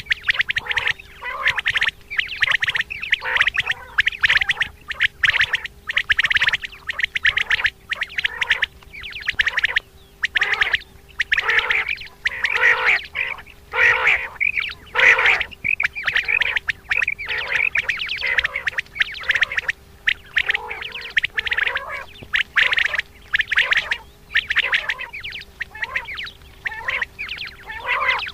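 Common quail calling over and over in quick, raspy clusters of notes with short pauses between them, the batair call used as a lure for quail hunting.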